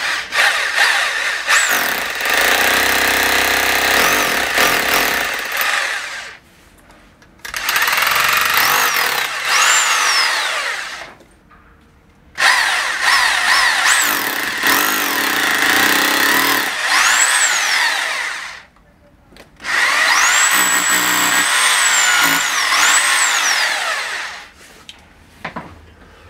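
Corded Makita rotary hammer drill boring into a plaster wall in four long bursts with short pauses between them. Its motor whine rises and falls through each burst.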